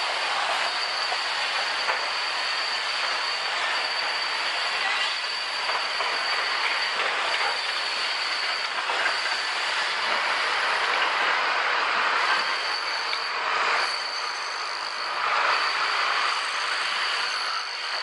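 Construction-site machinery running steadily: a loud, constant mechanical noise with a thin high whine over it, swelling a little now and then.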